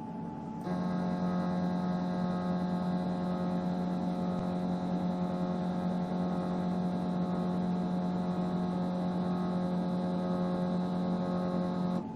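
EMCO Compact 5 lathe's Z-axis stepper motor driving the carriage in a continuous jog, a steady electric whine of several pitches. It starts abruptly under a second in and cuts off just before the end.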